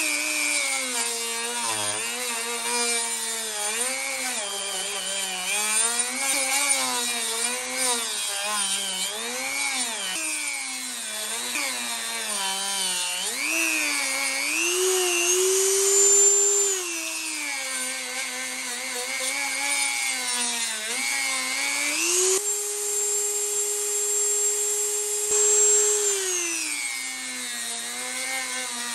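Dremel rotary tool with a sanding drum grinding out the metal exhaust flange opening of an expansion chamber. Its motor whine keeps dipping and rising in pitch as the drum is pressed into the metal and eased off. About two-thirds of the way through, the whine runs steady and higher for a few seconds.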